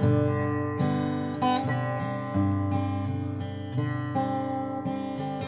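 Acoustic guitar strummed in a slow, even rhythm, a stroke roughly every three-quarters of a second, with the chords ringing on between strokes and changing a couple of times.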